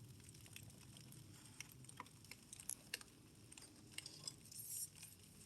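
Faint, sparse crackling and popping of firewood and paper just catching in a fireplace, with a short cluster of crackles near the end.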